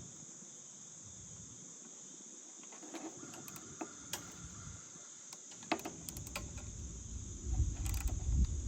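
Crickets chirring steadily, with scattered light metallic clicks and taps from a socket wrench as the battery hold-down bracket bolt is tightened.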